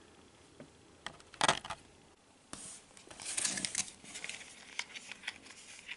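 A small plastic toy boat being handled: scattered light plastic clicks and rustling, with a louder crinkly rustle about halfway through.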